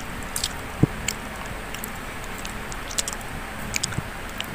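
Eating sounds as grilled chicken is torn apart by hand and chewed: scattered short clicks and smacks, with one low thump about a second in, over a steady background hiss.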